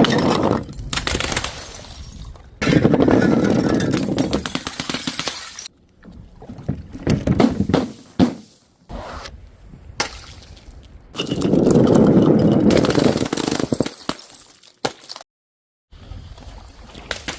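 Glass being broken and crushed in a run of short clips: dense crackling and crunching, with about six abrupt cuts between segments and a brief moment of silence near the end.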